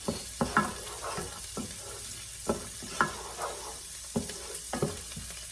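Spice masala frying in plenty of oil in a pan, sizzling steadily, with irregular clicks and scrapes of a spoon stirring against the pan. The oil is separating from the masala as it cooks, a sign that the spices are nearly done.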